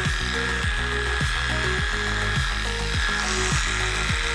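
Background music with a steady beat, over the steady buzz of electric pet hair clippers.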